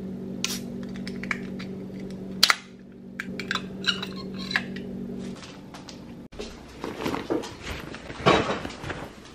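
Sharp clinks and taps of an aluminium drink can handled and set down on a wooden counter, over a steady low hum that stops about five seconds in. After a break near six seconds come rustling and bumps of handling.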